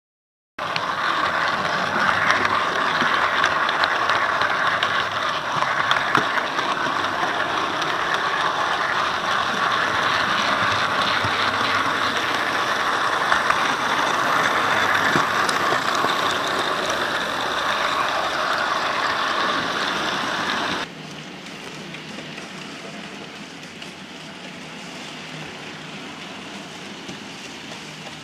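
Model railway locomotive and goods wagons running on the track: the steady whirring and rattling of the motor, gears and wheels on the rails. It is loud and close for most of the stretch, then drops suddenly to a quieter, more distant running sound about three-quarters of the way through.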